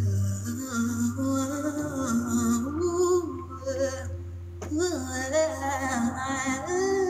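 A woman sings long, gliding vocal lines with no clear words, her notes bending up and down. Underneath is a backing of held low notes that changes pitch twice.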